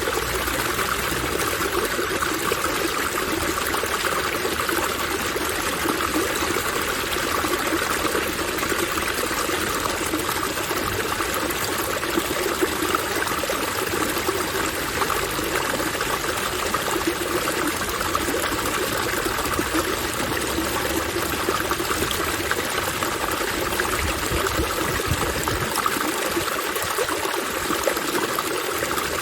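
Water fountain running: a steady, unbroken rush of splashing, falling water.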